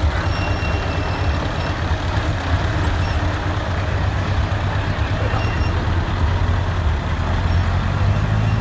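Diesel engines of heavy truck tractor units, a Scania and a Volvo, running with a steady, loud low rumble as they drive slowly past.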